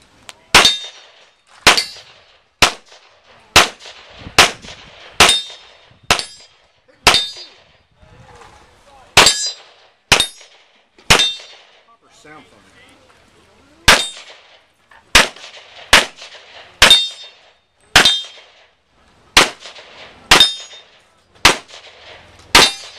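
Handgun shots fired through a practical shooting stage, about twenty in all, mostly about a second apart with a short pause midway, each crack followed by a brief ring.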